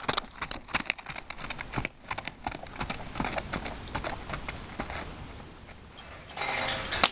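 Hoofbeats of a palomino horse on hard dirt, loud and close at first, then fainter as the horse moves away. Near the end comes a short rushing hiss, then a single sharp crack.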